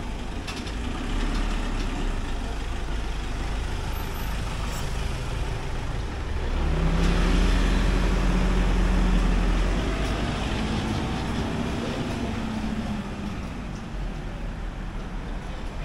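Street traffic: steady road noise, with one vehicle's engine growing louder and passing close by between about seven and ten seconds in.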